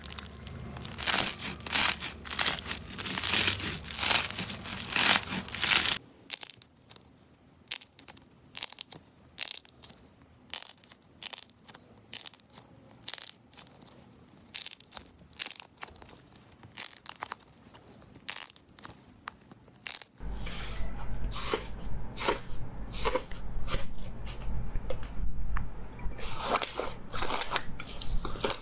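Slime being squeezed, poked and pulled in the hands, giving a dense run of crisp crackles, pops and crunches. It is loud for the first few seconds, much softer through the middle stretch, and loud again near the end over a low hum.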